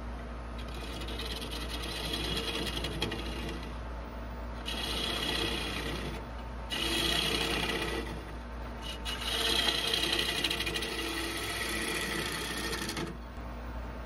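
Bowl gouge cutting the inside of a maple bowl spinning on a wood lathe: a scraping, shearing noise in four passes with short breaks, over the lathe's steady low hum. The cutting stops about a second before the end.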